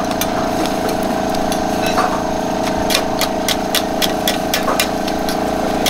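Metal spatulas clacking and scraping on a steel flat-top griddle as scallion pancakes are scrunched and fluffed, many quick sharp clicks. Underneath runs a steady machine hum.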